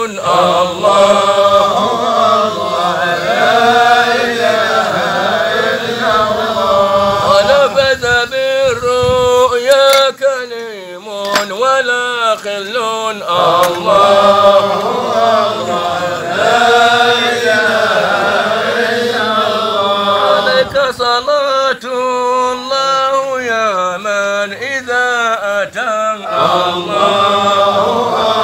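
Men's voices chanting Sufi dhikr (hadra) in long, melismatic lines whose pitch wavers and bends without stopping.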